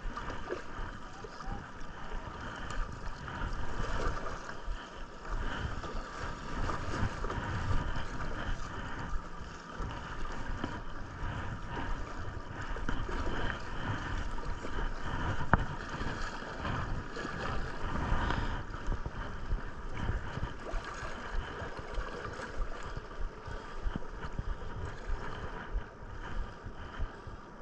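Steady rush of river water, with wind buffeting the microphone in irregular low gusts.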